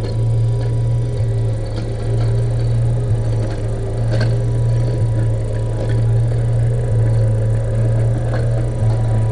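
Benedini sound unit in a 1/6-scale RC King Tiger tank playing its tank-engine sound through the model's speaker as the tank drives: a steady low drone with a small break about every two seconds, as the recording loops. A few faint ticks sound over it.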